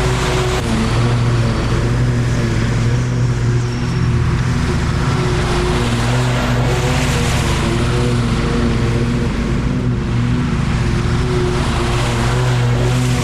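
A lawn mower engine running steadily under load, a constant drone over a wash of cutting noise.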